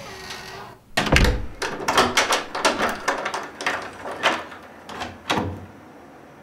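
Door lock and lever handle worked over and over while the lock is tested with its key: a run of sharp metal clicks and clacks from the latch and handle. The loudest clack comes about a second in, and the clicking stops about a second before the end.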